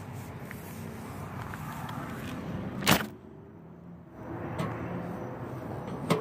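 Phone handling noise: a sharp knock about three seconds in, after which the sound turns muffled for about a second, and a smaller knock near the end, over a steady low background rumble.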